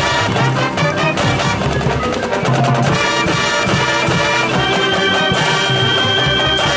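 High school marching band playing a field show: brass with drums and front-ensemble percussion. It moves from quick percussive hits into held brass chords about three seconds in, with a high note sustained near the end.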